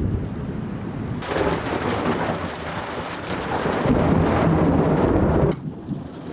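Thunderstorm: low rolling thunder with heavy rain hissing in about a second in, growing louder, then dropping away suddenly near the end.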